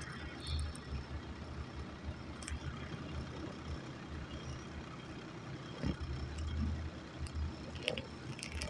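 LiuGong wheel loader's diesel engine running with a low, uneven rumble as the loader drives and works its bucket. A couple of short knocks come near the end.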